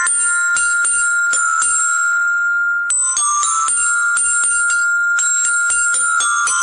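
Marching glockenspiel (bell lyre) played with a mallet: a tune of single struck metal bars ringing out. One note is left ringing alone from about a second and a half in to about three seconds in, then the quick notes resume.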